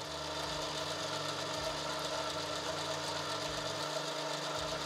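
Metal lathe running while a shop-made two-wheel knurling tool rolls a pattern into a spinning metal bar: a steady mechanical whir with a constant hum.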